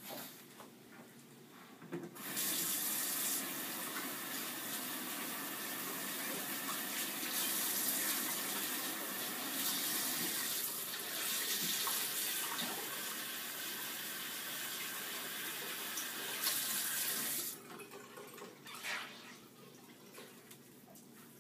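Bathroom sink faucet running in a steady rush of water, turned on about two seconds in and shut off a few seconds before the end.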